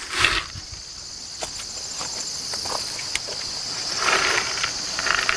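A steady, high-pitched chorus of insects trilling. Over it come handling noises: a loud rustle right at the start, then scattered clicks and rattles as a coffee can of dried bean seeds is handled.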